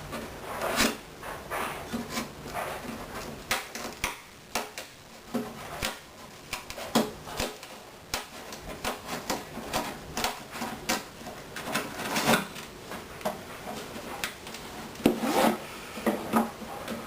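Hand tools working at the wooden body of a Gibson L-48 archtop guitar, prying and scraping at the joint to lift the binding and back. Irregular clicks, small knocks and short scrapes on wood, with a louder cluster of scrapes about twelve seconds in and another about fifteen seconds in.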